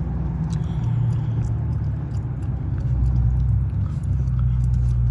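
Dodge Scat Pack's 392 V8 engine and exhaust droning at cruising speed, with tyre and road noise. The pitch steps up slightly about a second in.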